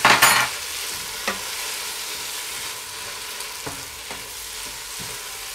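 Onion-tomato masala sizzling steadily in a nonstick pot as a wooden spatula stirs in fresh mint and coriander leaves. A loud scrape of the spatula comes at the start and a short knock about a second later, then lighter scrapes over the sizzle.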